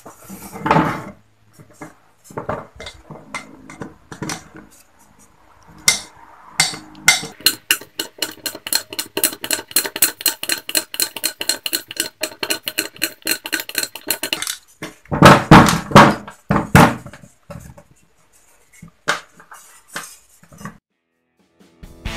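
Pliers working out a screw stub whose head has been drilled off, from the oil pump seat of a Yamaha engine side cover: metal clicks and clinks, then a run of rapid, even clicking at about five a second with a steady squeak over it, followed by a few louder knocks.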